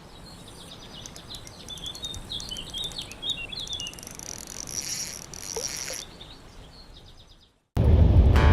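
Small birds chirping over a high, steady insect buzz, fading out after about seven seconds. Acoustic guitar music cuts in loudly near the end.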